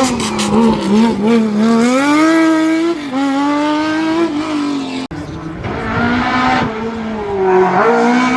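Race car engine accelerating hard through the gears, its pitch climbing and then dropping at each upshift several times over, with a sudden break about five seconds in.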